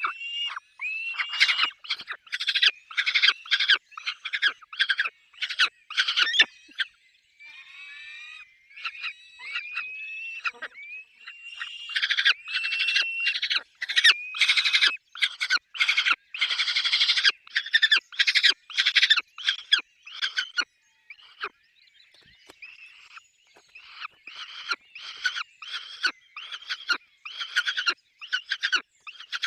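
Peregrine falcons calling at the nest: a rapid run of harsh, rasping calls several a second, mixed with short upward-sliding whistled notes. The calling eases off for a few seconds twice, about a quarter and two-thirds of the way through.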